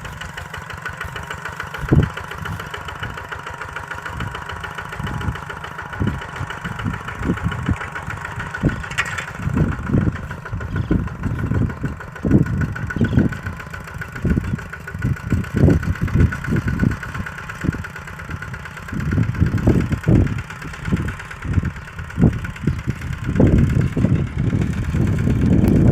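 Kubota RT-120 single-cylinder diesel engine running steadily, with many irregular low thuds over it that come thicker near the end.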